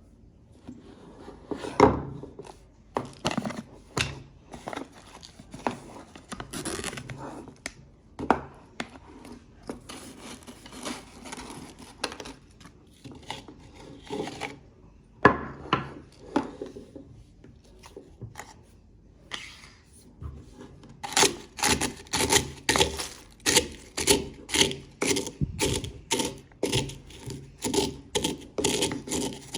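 Pringles potato crisps being crushed in a spice grinder, crunching and rasping. The strokes are irregular at first, then settle into a steady rhythm of about two a second for the last third.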